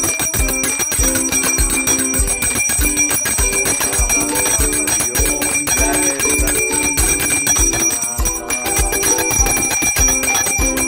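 A puja hand bell ringing continuously over devotional music with a steady beat and a melody.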